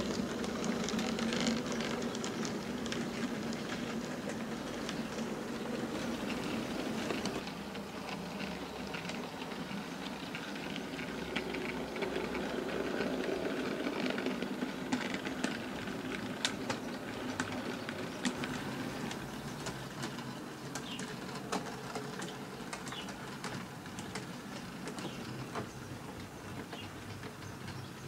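OO gauge model train running on its track: the locomotive's small electric motor whirring, and the wheels clicking over the rail joints. The hum is strongest for the first seven seconds or so; after that the clicks stand out, growing a little fainter near the end.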